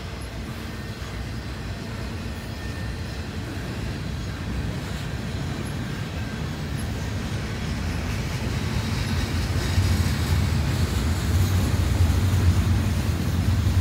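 Double-stack intermodal container cars of a freight train rolling past, a steady rumble of steel wheels on rail that grows louder in the second half.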